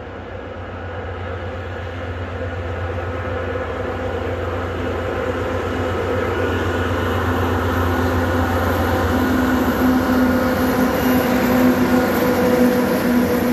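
Twin-section 2TE116U diesel locomotive with 16-cylinder diesel engines pulling a loaded coal freight train, running steadily under power and growing louder as it approaches and reaches the listener.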